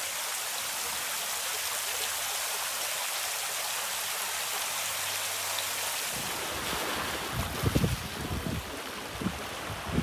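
Sea surf washing on the shore as a steady rushing hiss. From about six seconds in, wind buffets the microphone in low, uneven gusts.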